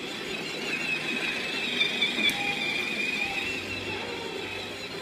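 Battery-powered Thomas the Tank Engine ride-on toy train running along its track: a steady, slightly wavering whine from its electric motor and gears over the rumble of its wheels.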